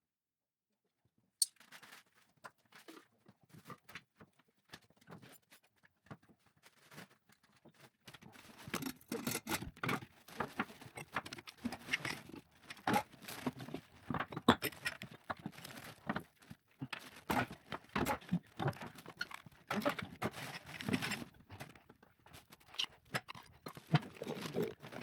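Irregular knocking, clicking and rustling of objects and materials being handled, starting with a sharp click after a short silence and growing busier about eight seconds in.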